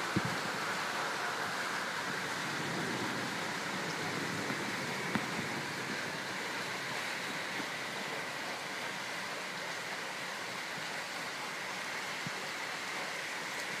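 Rain falling steadily in a rainstorm, an even hiss, with a couple of faint ticks about four and five seconds in.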